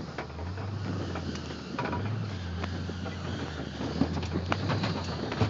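Engine of a vehicle towing an inflatable tube across a field, running with a steady low hum that grows a little louder as it pulls away. Scattered knocks and rattles come near the end.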